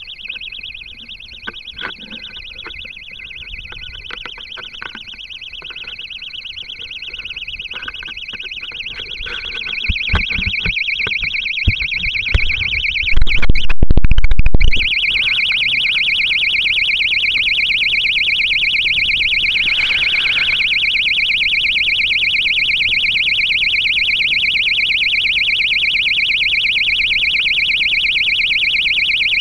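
Electronic buzzer aboard an amateur rocket sounding continuously: a shrill, rapidly pulsing tone. Knocks and rubbing close to the microphone build up under it, ending in a very loud, distorted rumble for about a second near the middle, after which the buzz is louder and harsher.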